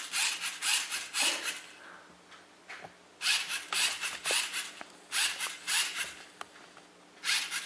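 Lego Mindstorms machine's motor and gears running in short rasping, clicking bursts about every two seconds as it backs away in small steps, each step set off by its sensor detecting the spinning top coming closer.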